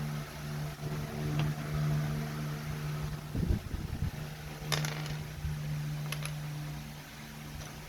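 Plastic keycaps clicking and clattering as they are handled and pressed onto a mechanical keyboard's switches: a few sharp clicks and a dull thump over a steady low hum.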